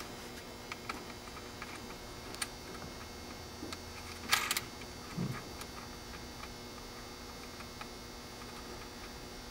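Small scattered clicks and a brief scrape of a toggle light switch and its retaining nut being worked by hand into a plastic golf-cart dash panel, over a faint steady hum.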